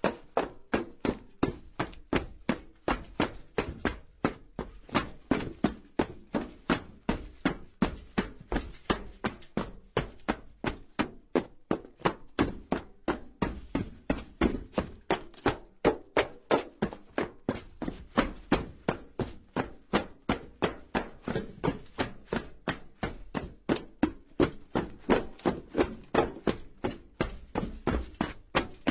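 Footsteps of a person running on a metal roof: a steady, even run of footfalls on sheet metal.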